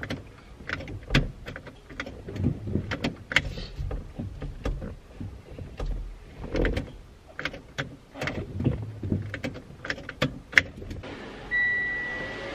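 Irregular clicks and knocks of hands handling controls and trim in a car's cabin. About a second before the end a steady rushing noise starts, with a short high beep at its onset.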